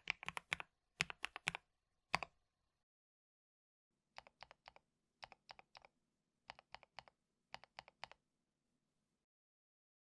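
Keys being typed on a mechanical keyboard, a KBD67 Lite, in short runs of clacks: a few louder runs in the first couple of seconds, then four quieter runs of about four keystrokes each.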